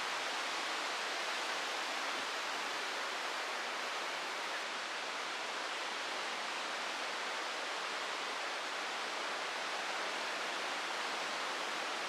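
The Aare river running fast over rapids: a steady rushing of white water.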